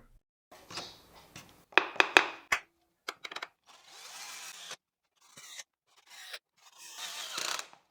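Pine boards being handled: a few light knocks and taps, and two short stretches of wood rubbing or sliding against wood.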